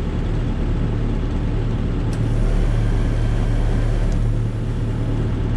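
Volvo BL70 backhoe's diesel engine idling steadily, with two faint clicks about two and four seconds in.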